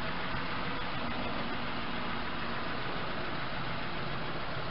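An engine idling steadily: an even low hum with a hiss over it, unchanging throughout.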